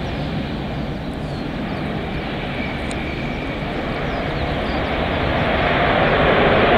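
Jet airliner engines: a steady rumble that grows louder over the last couple of seconds.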